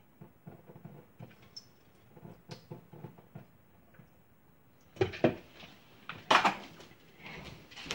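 Dishes and kitchenware knocking and clattering at a kitchen sink: soft scattered clinks at first, then several loud knocks and clatters about five and six seconds in.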